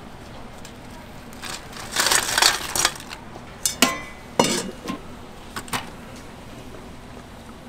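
A metal mesh strainer and a cloth stock sack handled in a large aluminium stockpot of broth: a second or so of noisy sloshing and rustling, then several sharp metallic clanks against the pot, one ringing briefly about four seconds in.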